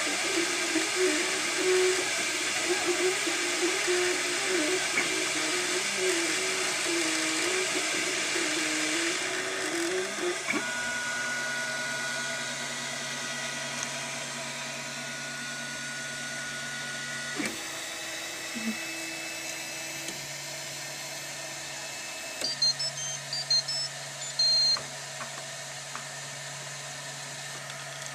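MakerBot 3D printer at work: stepper motors whining with a wavering pitch as the print head moves, over a steady fan hiss. About ten seconds in the movement stops and a few steady motor tones and the fan remain, with a click part way. Near the end comes a short run of high beeps at different pitches, the printer's signal that the print is finished.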